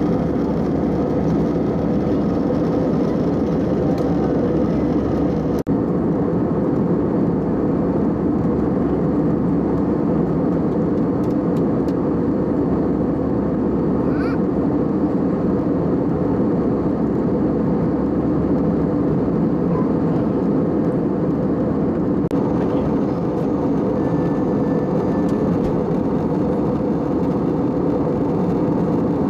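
Steady drone of jet engines and rushing airflow heard inside the cabin of an Airbus airliner at cruise.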